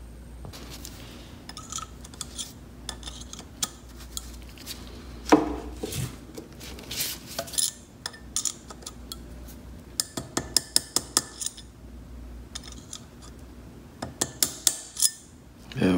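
A thin steel tool clicking and tapping against a Heli-Coil wire thread insert in an aluminum motorcycle engine case, working to snap off the insert's tang that did not break off. Irregular sharp metallic clicks come in quick clusters, with one louder knock about five seconds in.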